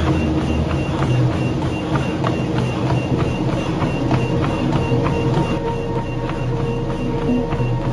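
Treadmill belt and motor running with a steady rumble under rhythmic footfalls on the deck, about three a second.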